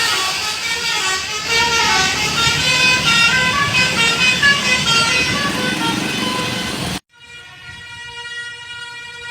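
Basuri telolet musical air horn on a bus playing a tune of short notes stepping up and down in pitch. About seven seconds in it cuts off abruptly, followed by a quieter, steady held horn chord.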